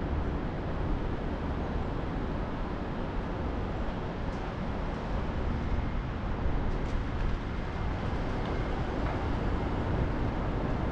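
Steady low rumbling background noise, with a couple of faint ticks in the middle.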